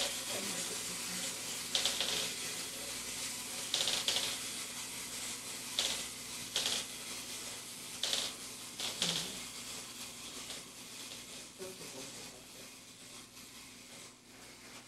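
Clockwork motors of wind-up egg-laying toy hens whirring as they walk, with a sharper clicking burst about every two seconds. The whirring fades toward the end as the springs run down.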